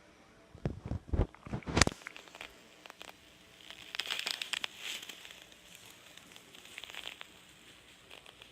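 Stomach growling in a short run of low gurgling rumbles about a second in. Fainter crackling and rustling follow, like fur or handling against the microphone.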